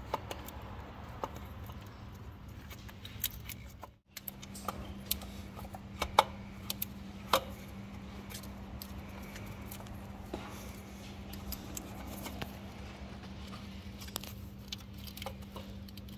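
Scattered metallic clicks and clinks as hands work a throttle body and its bracket free in an engine bay, over a steady low hum.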